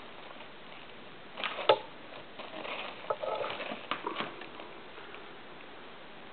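Sleeved power-supply cables and their plastic multi-pin connectors being handled over bubble wrap: a sharp click about one and a half seconds in, then a run of small clicks and rustling for about two seconds, which then dies away.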